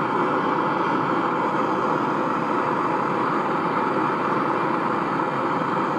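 Gas torch flame running steadily, heating a rusted, seized cylinder-head bolt on a 1929 Ford Model A engine to help free it.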